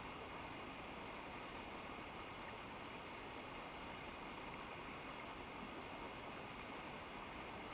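Steady rushing of a cold mountain river's water, an even noise that does not change.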